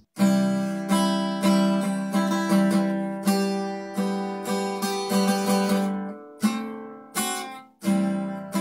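Outro music: strummed acoustic guitar chords, each struck sharply and left to ring, about one a second.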